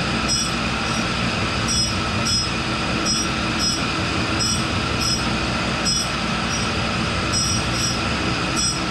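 A Cincinnati No. 2 tool and cutter grinder runs with its grinding wheel hissing steadily on steel. Brief high squeals come and go every second or so.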